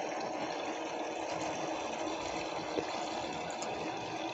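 Toy kitchen sink's small electric recirculating water pump running steadily, with water from its tap trickling into the plastic basin. A light click about three seconds in.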